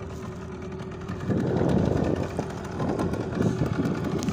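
Fishing boat's engine idling with a steady hum; from about a second in, a louder rough, irregular noise covers it.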